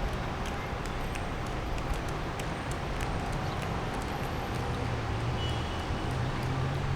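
Steady outdoor background noise: a low, unsteady rumble with scattered faint clicks, and no speech.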